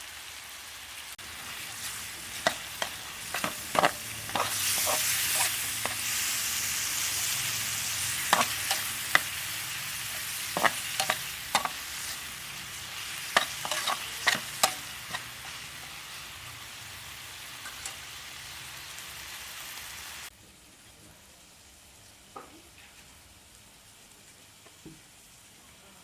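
Squid sizzling as it cooks, a steady frying hiss with many sharp metal clinks and knocks from a utensil being worked through the first half. The sizzle eases off and then drops away suddenly about three-quarters of the way through, leaving only a few faint ticks.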